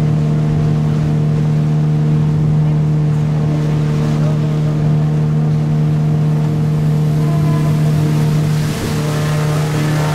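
A motorboat's engine running at a steady speed, a constant hum with water and wind hiss over it. The hiss grows a little near the end.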